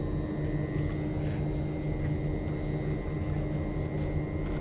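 A steady low mechanical rumble with a constant hum, and a thin steady high whine above it.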